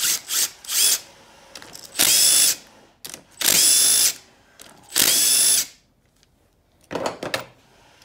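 Cordless impact driver spinning out the crankcase half bolts of a small two-stroke outboard powerhead, in several short bursts of about half a second each with a steady motor whine. A few sharp knocks follow near the end.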